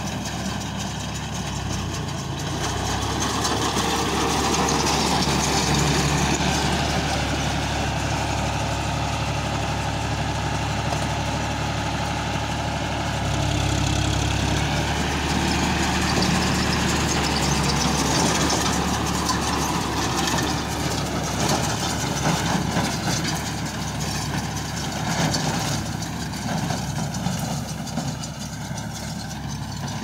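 John Deere 5042D tractor's three-cylinder diesel engine running steadily while it pulls and drives a mini round baler through straw stubble. The engine swells briefly about halfway through.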